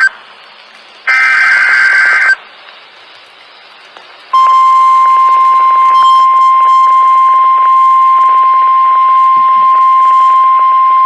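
NOAA Weather Radio alert sequence. A burst of SAME digital header data, a raspy two-pitch screech, ends as it begins, and a second burst lasts about a second. About four seconds in, the steady single-pitch 1050 Hz warning alarm tone starts and holds, the signal that a warning is about to be broadcast.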